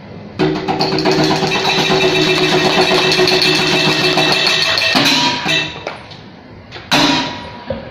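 A wind instrument sounding a loud held chord of several steady tones for about four and a half seconds, then a few short blasts, the last one near the end.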